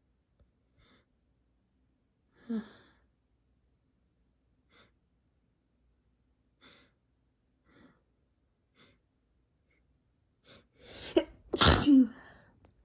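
A person's nose and breath: several faint sniffs and short breaths while a sneeze is induced, then a quick gasping build-up and one loud sneeze near the end.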